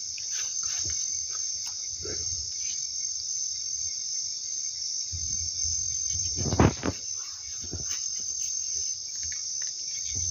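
Steady high-pitched chorus of night insects, with scattered rustles and short knocks of handling close to the phone, the loudest a sharp knock about two-thirds of the way through.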